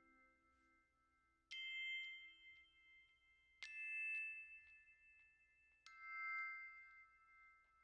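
Quiet background music: three bell-like struck notes about two seconds apart, each ringing on and slowly fading.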